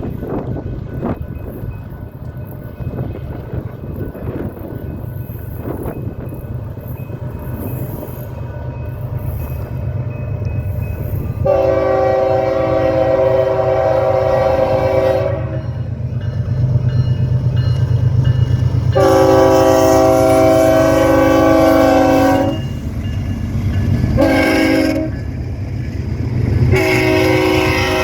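BNSF diesel freight locomotive rumbling closer, sounding its air horn in two long blasts, one short and a final long one that is still sounding at the end. This long-long-short-long pattern is the standard warning for a grade crossing.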